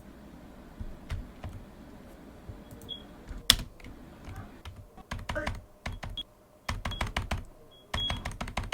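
Computer keyboard being typed on: sparse key clicks at first, then quick runs of clicks in bursts through the second half, with one louder click about three and a half seconds in. A few short high beeps sound between the bursts.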